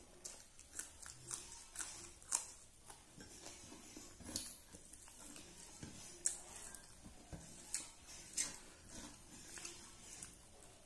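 Close-up eating sounds of a person eating rice by hand: irregular wet smacks and clicks from chewing, with fingers mixing rice on a steel plate.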